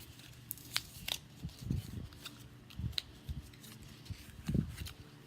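Hands handling phone accessories and their packaging: scattered sharp clicks and crinkles with a few soft thumps as items are moved on the table.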